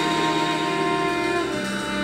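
Live ensemble of violins, cello, guitars and keyboard playing a slow passage of held notes that change every second or so, with no singing.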